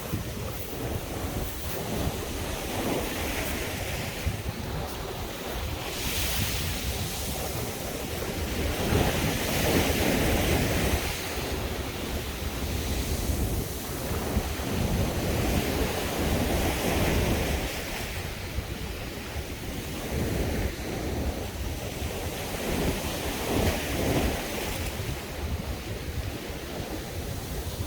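Sea waves breaking on a beach, the surf swelling and easing every few seconds, with wind buffeting the microphone.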